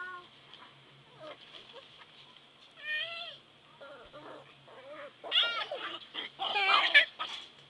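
A toddler's high-pitched squeals and wordless vocalizing: a short call at the start, another about three seconds in, and a louder run of squeals in the last few seconds.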